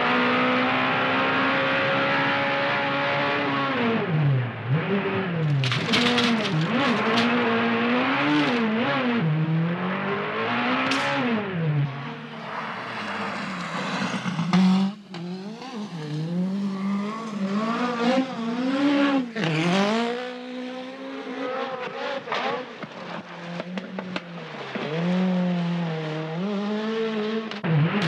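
Peugeot 405 Turbo 16 Pikes Peak rally car's turbocharged engine at full effort, its pitch climbing and dropping sharply again and again as the revs rise and fall through the corners, with brief bursts of tyre and gravel noise.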